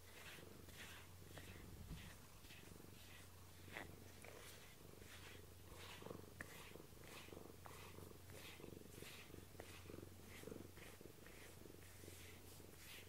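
Domestic cat purring quietly and steadily while its fur is groomed with a rubber brush, the soft brush strokes about twice a second.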